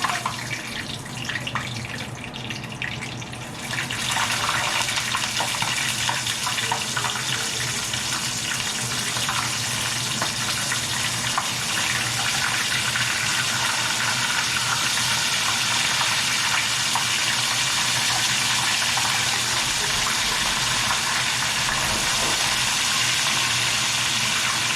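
Fish pieces coated in flour frying in hot oil, a steady loud sizzle that jumps up about four seconds in, as more fish goes into the oil, and then holds.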